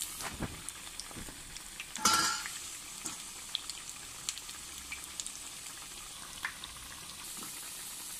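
Moong dal nuggets deep-frying in hot oil in a pan: a steady sizzle with scattered small crackles, and one louder sharp pop about two seconds in.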